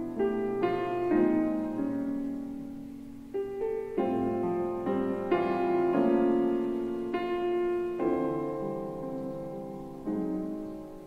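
Background piano music: slow, soft chords and notes struck one after another and left to ring, with a new chord about ten seconds in.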